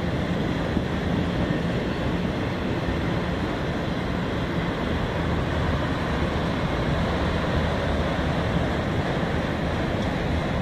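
Empty autorack cars of a CSX freight train rolling past, a steady low rumble of steel wheels on the rails.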